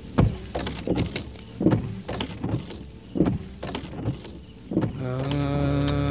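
A series of about ten irregular sharp bangs over five seconds, then sustained chant-like film music comes in about five seconds in and swells.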